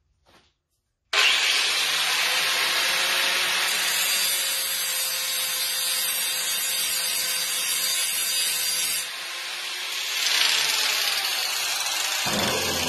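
Handheld electric angle grinder switched on about a second in and grinding down a dent in a router's base plate, the reference surface the router rests on, to make it flat again. The grinding changes in tone around nine seconds in, grows louder again, and a low rumble comes in near the end.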